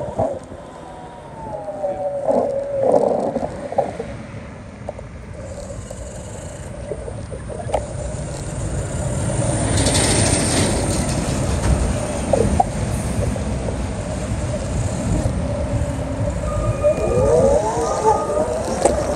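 Street traffic: vehicles passing with a low rumble that swells and fades, and several rising tones near the end.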